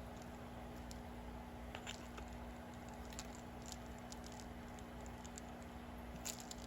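Faint, scattered light clicks and taps of small beads and their packets being handled, over a steady low hum.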